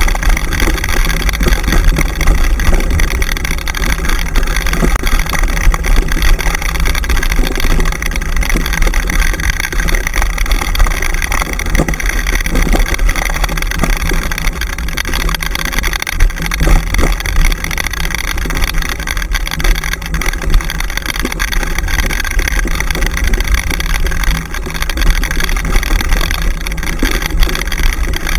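Wind buffeting the microphone of a camera on a dog-pulled dryland rig moving fast over a dirt trail, with the rumble and rattle of the rig's wheels on the ground. It is a loud, steady low rumble that jolts unevenly with the bumps.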